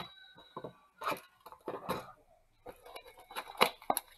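Cardboard boxes of 2020 Bowman trading cards being handled and shuffled about on a table: an irregular run of scrapes, taps and crinkles, loudest near the end as a Mega Box is picked up to be opened.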